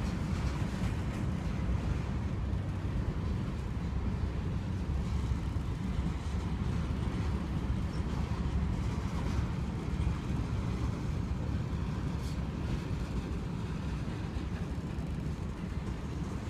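Union Pacific freight train rolling past: a steady low rumble of wheels on rail, with a few faint knocks.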